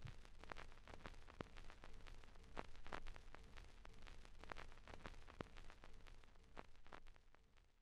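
Faint crackling hiss with scattered small clicks and a low steady hum, cutting off to silence near the end.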